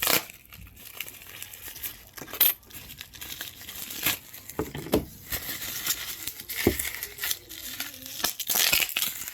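Phone packaging being handled and opened: rustling and crinkling of wrapping with scattered clicks and taps, the rustle swelling near the end.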